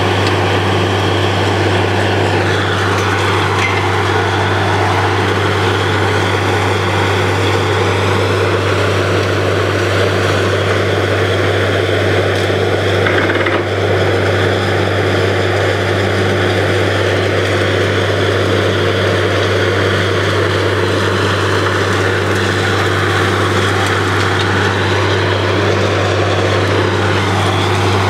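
Truck-mounted borewell drilling rig running steadily under load while drilling a bore: a loud, continuous machine drone with a strong low hum and a slowly wavering higher tone.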